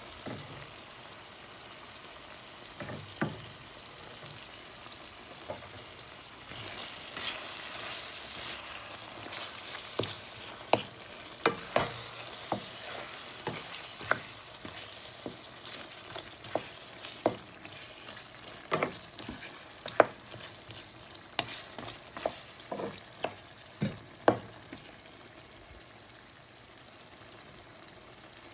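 Chicken curry sizzling in a metal pan with its sauce cooking down, under a steady hiss. A wooden spoon stirs it, knocking and scraping against the pan many times.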